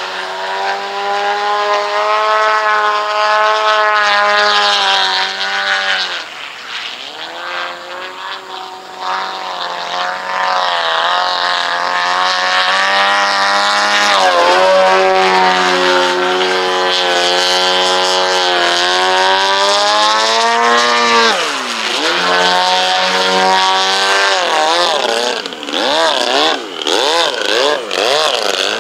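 Large RC aerobatic airplane's engine and propeller running hard through manoeuvres, pitch rising and falling with the throttle. Its pitch drops sharply twice as the plane sweeps past, and near the end it wobbles quickly up and down.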